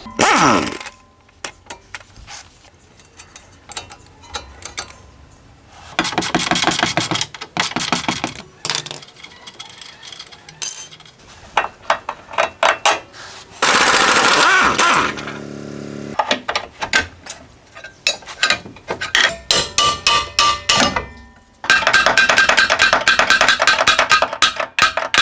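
Pneumatic impact wrench rattling in several bursts of a second or more, loosening the bolts of a car's lower control arm, with scattered clanks of tools and metal parts between the bursts.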